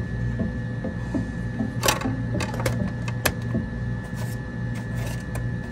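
A CD being set onto the spindle of a plastic CD player and the player handled: a few sharp plastic clicks and taps, the loudest about two seconds in, over a steady low hum.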